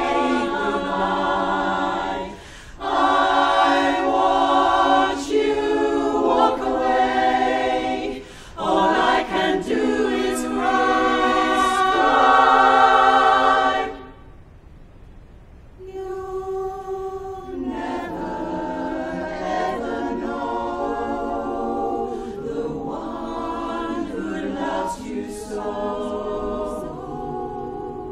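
Women's barbershop chorus singing a cappella in close harmony. The loud chords stop about halfway through, and after a short pause the singing resumes more softly.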